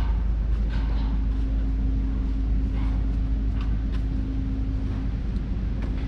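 A motor engine running with a steady hum that stops about five seconds in, over a strong, even low rumble, with a few scattered light ticks.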